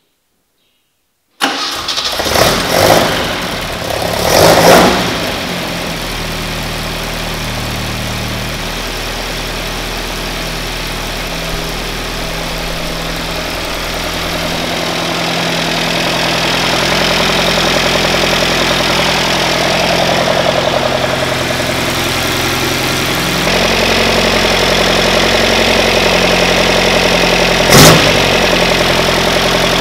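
Alfa Romeo Giulia 1300 Ti's twin-cam four-cylinder engine on newly fitted Weber carburettors, starting suddenly about a second and a half in and blipped twice. It then settles into a steady idle that slowly rises, with one short blip near the end.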